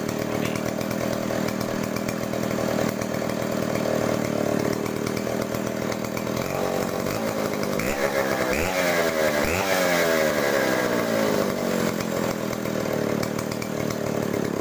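Two-stroke chainsaw running on the ground at a steady idle, its throttle blipped a few times about halfway through so the engine speed rises and falls, then settling back to idle.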